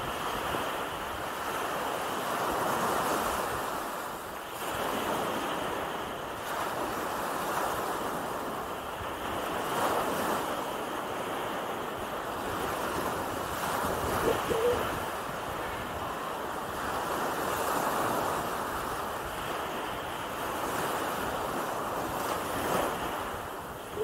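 Small Gulf of Mexico waves washing up and draining back over a sandy beach, swelling every several seconds, with wind on the microphone. A brief pitched sound stands out about halfway through.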